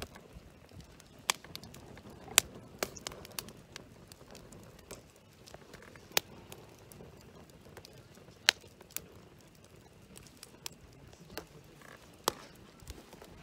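Split firewood logs burning in a campfire, crackling with sharp, irregular pops about a second apart.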